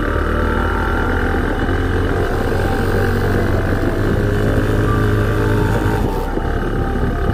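Motorcycle engine running at a steady speed while riding, with wind and road noise.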